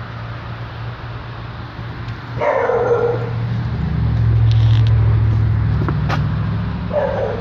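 A dog barks twice, about four and a half seconds apart, each bark short and falling in pitch. Under the barks runs a low engine rumble that swells in the middle, as of a vehicle passing close by.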